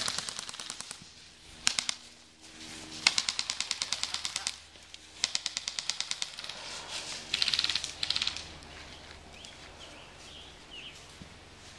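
Airsoft guns firing in several rapid bursts of clicking shots, with the last burst about eight seconds in.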